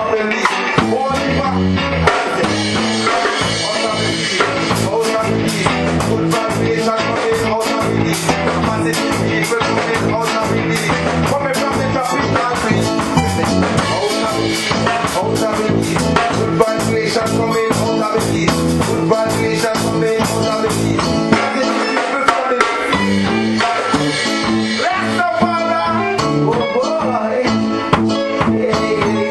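Reggae band music played with drum kit, guitar and bass, with some singing.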